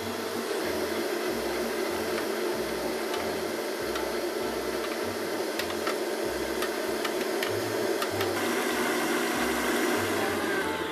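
Kenwood stand mixer motor running steadily as it beats pancake batter.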